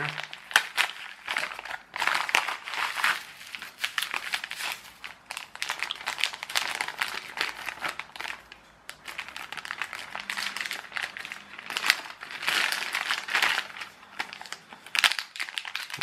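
Crinkling and rustling of mail packaging handled by hand: a padded envelope, a paper customs form, and a clear plastic bag around a foil antistatic bag. It comes in irregular bursts.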